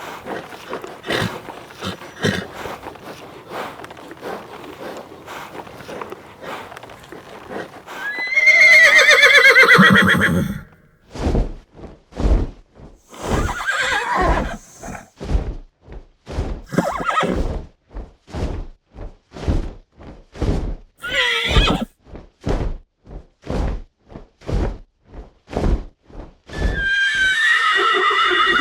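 Horse sounds built into a Pegasus sound effect. It opens with a rapid clatter of hoofbeats, then a loud whinny about eight seconds in. After that comes a steady run of heavy beats about one and a half per second, broken by three more whinnies.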